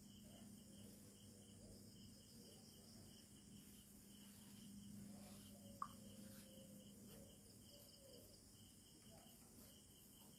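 Faint crickets chirping at night in a steady pulsing rhythm over a low steady hum, with a single sharp tick a little under six seconds in.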